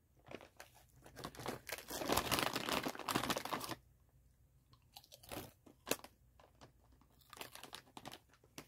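Rustling and crunching of popped veggie-and-potato chips being taken from the bag and bitten, most intense in the first few seconds. Scattered crunches of chewing follow twice more.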